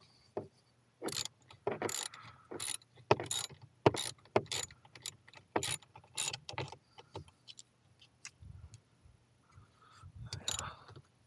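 Hand socket ratchet clicking in short runs, about two strokes a second, as a serrated flanged grounding bolt is tightened into a solar panel's aluminium frame; the strokes thin out after about seven seconds.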